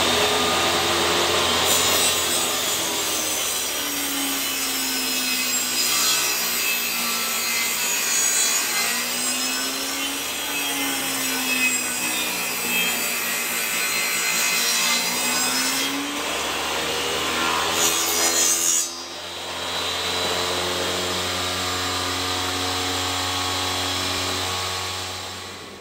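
Table saw running and ripping pallet-wood boards along the fence. A long cutting hiss sits over the motor's hum, and the hum's pitch sags under load and recovers. A short, louder cut comes about three-quarters of the way through, and the saw's sound dies away near the end.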